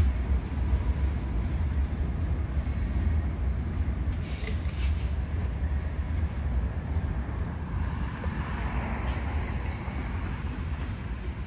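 Low, steady rumble of a freight train of hopper cars rolling away, mixed with wind buffeting the microphone; a car drives past about eight seconds in.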